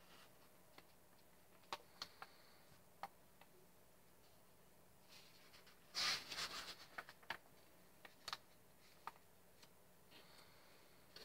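A comic book's paper page rustling as it is turned by hand, about six seconds in, trailing off over about a second. A few light ticks come before and after.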